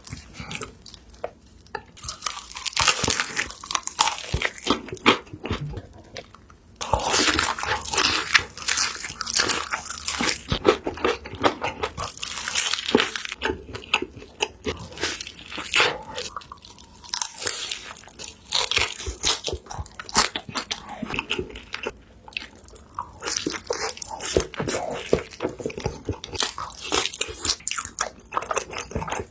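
Close-miked eating: repeated crunchy bites and chewing of crisp food, in dense crackly runs with short lulls between mouthfuls.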